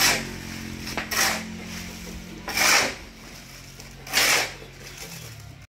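Shovel scraping and turning wet concrete mix on a cement pad during hand mixing: four strokes about a second and a half apart.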